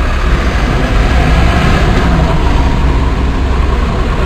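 Fire engine's diesel engine idling, a steady low rumble.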